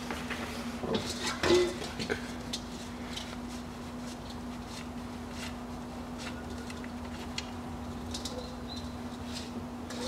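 Faint metallic clinks of the oil drain plug being unscrewed by hand from the engine's sump, over a steady low hum. A short low note sounds once, about a second and a half in, louder than the rest.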